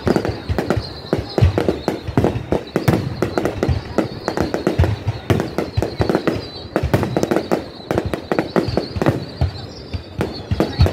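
Aerial firework shells bursting in a rapid, irregular run of bangs and crackles, many reports following one another every fraction of a second.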